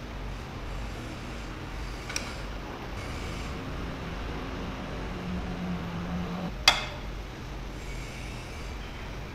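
Low steady hum with two sharp knocks, a faint one about two seconds in and a louder one about two-thirds of the way through.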